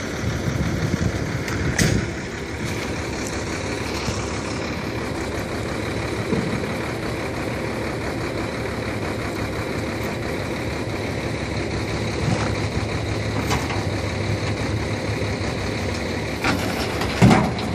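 Heavy vehicle engine idling steadily, with a couple of brief knocks.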